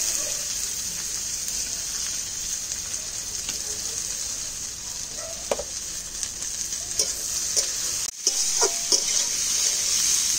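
Chopped onions sizzling in hot oil in a kadai, stirred, with short scrapes and clinks of the spoon against the pan. The sizzle breaks off for an instant a little after eight seconds in, then carries on.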